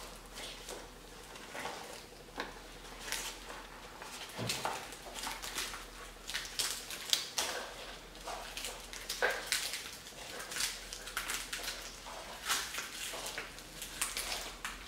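Dong leaves wrapped around a meat roll rustling and crackling as gloved hands fold and press down the leaf ends, a stream of irregular crinkles.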